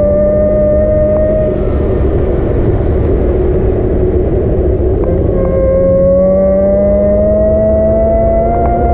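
Electric motor of an e-bike whining over wind and road rumble. The whine cuts out about a second and a half in, leaving only the rush of riding, then comes back about five seconds in and climbs slowly in pitch.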